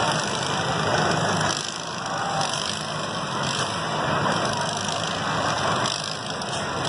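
Several riding lawn mower engines running at once in a dense, steady mix, as the mowers push and bash against each other in a demolition derby.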